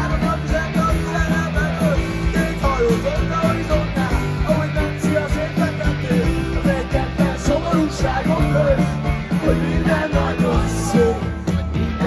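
Live rock band playing loudly through a festival PA, with a man singing the lead over electric guitar, bass and drums, heard from among the crowd.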